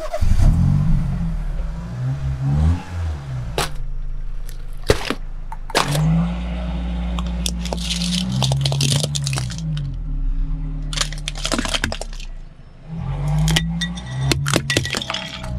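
Sharp cracks and crunches of objects breaking under a car tyre, among them a pile of plastic toy cars being crushed, over background music with a deep, repeating bass line.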